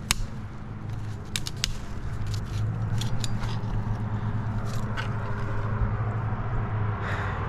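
Scattered sharp clicks and scraping from tree-climbing spurs and gear working against bark, over a steady low hum.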